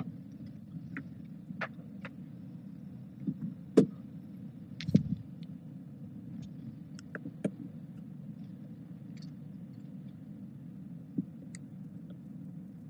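Steady low room hum with scattered small clicks and knocks. The sharpest knock comes about four seconds in, followed by a duller thump about a second later.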